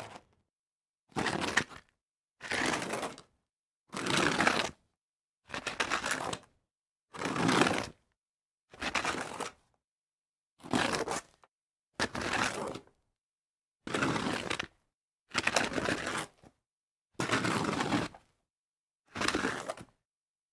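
A series of separate slide-on-dirt sound effects: short gritty scraping slides through dirt, about thirteen of them, each lasting up to a second with silence between.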